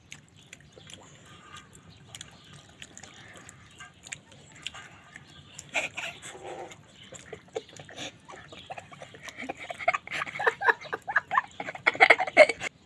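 Close-up wet chewing and lip-smacking of a person eating chicken and dal curry: scattered soft mouth clicks, growing into a dense, louder run of smacking about ten seconds in that stops suddenly near the end.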